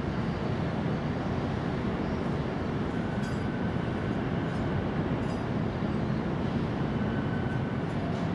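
Steady low rumbling background noise, even throughout, with a faint thin high tone for a couple of seconds in the middle and again near the end.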